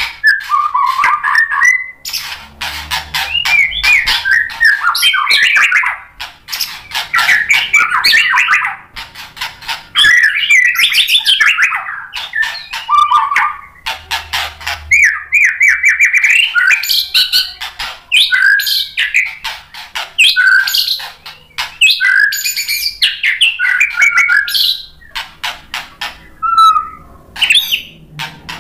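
White-rumped shama singing in full, loud song: phrases of rich whistles that slide up and down, mixed with fast, harsh ticking chatter, broken by short pauses every few seconds.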